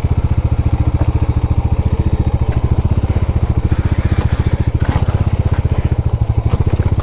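Motorcycle engine running at low revs with an even, rapid thudding exhaust beat while the bike creeps down a steep rocky trail on clutch and brakes. A few faint knocks from stones come through now and then.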